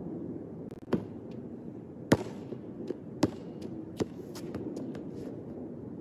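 A basketball bouncing on an outdoor hard court: a handful of sharp, irregularly spaced thuds, the loudest about two seconds in.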